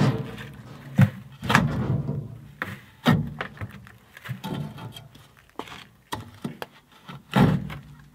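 Cold ash being scooped by hand out of the steel firebox of a homemade maple-sap evaporator into a plastic pail, with scraping in the ash and several sharp thunks against the metal box and pail, the loudest near the end.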